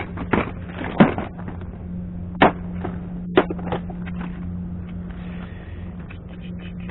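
A clear plastic tackle box of hard-bodied fishing lures being handled and opened: several sharp plastic clicks and knocks, the loudest about a second in and again about two and a half seconds in, over a steady low hum.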